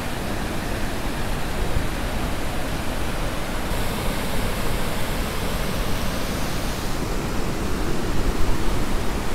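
Steady rushing roar of a flooded monsoon river pouring over rapids through a rocky gorge.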